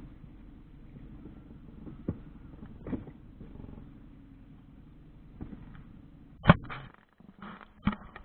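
Pontoon boat's outboard motor running with a steady low hum. Several sharp knocks come over it, the loudest about six and a half seconds in, and the hum briefly drops out near the end.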